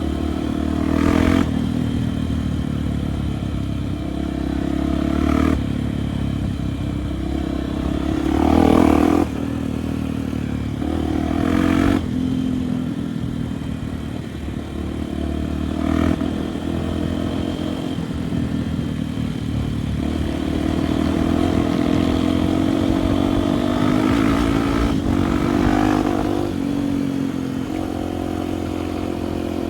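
Honda Tornado trail motorcycle's single-cylinder four-stroke engine running under way, its note rising and easing with the throttle, with a few short clattering knocks as it rides the rough trail.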